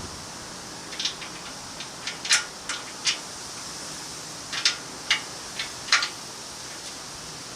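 Irregular light clicks and taps of hand tools and metal parts being handled, about a dozen over a few seconds, over a steady background hiss.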